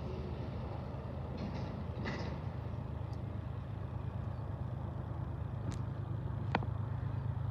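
Low, steady rumble of an approaching train's diesel locomotive, with two sharp ticks about a second apart near the end.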